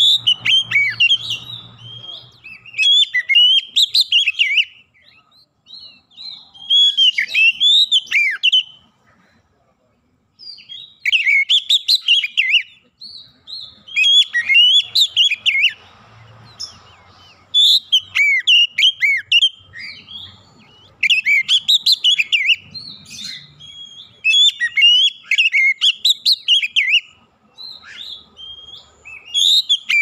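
Male oriental magpie-robin singing: loud, clear phrases of quick whistled and warbling notes, each one to three seconds long, separated by short pauses, with a silent gap about nine to ten seconds in.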